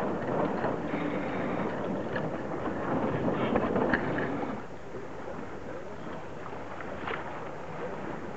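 Wind and rushing water on a sailing regatta course, a steady noise without any tone, louder for the first four and a half seconds and then easing.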